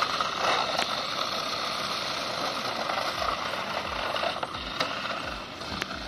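Small electric motors and gearboxes of toy RC cars whirring steadily as the cars drive over asphalt, with a few sharp clicks.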